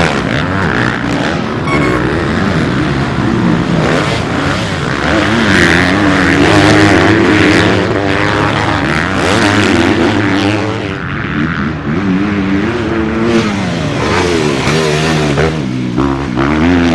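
Several motocross bikes' engines revving hard through a dirt-track corner, their pitch repeatedly rising and falling as riders accelerate, shift and back off one after another.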